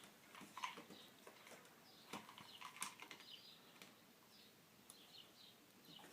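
Faint, sparse clicks and light scratching: rubber screen spline being pressed by hand into the channel of a window screen frame, starting at a corner.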